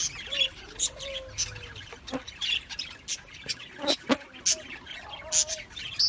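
Budgerigars chirping and chattering in many quick, short calls, with a few sharp clicks around the middle.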